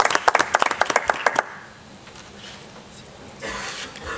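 Applause from a small audience: a few people clapping, separate claps audible, which stops about a second and a half in.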